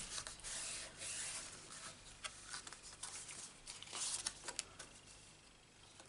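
Cardstock being handled: a hand smoothing a card panel flat on a paper work mat, then the card being picked up, with soft rubbing rustles and light taps, the loudest about four seconds in.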